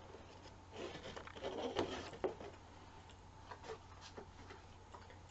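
Light rustling, then a few small clicks and knocks, as a large wooden stitching frame with mesh stretched over it is handled and turned around.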